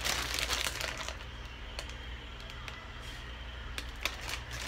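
Plastic mailer bag crinkling as it is handled and shaken, loudest in the first second, then quieter with a few faint ticks.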